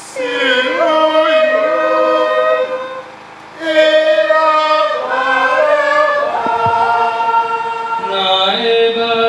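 A choir singing the crowd's reply in a chanted Passion reading, in slow held notes, with a short break for breath about three seconds in.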